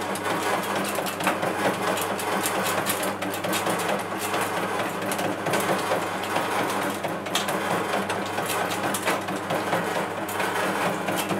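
Custard apple de-seeding machine running: a steady hum with a constant fast, irregular clatter of clicks as it works the fruit into pulp.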